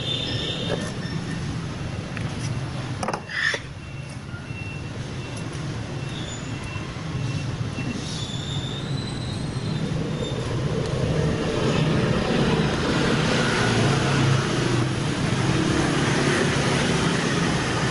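Street traffic noise: a steady low engine hum and road noise that grows louder in the second half, with a single sharp click about three seconds in.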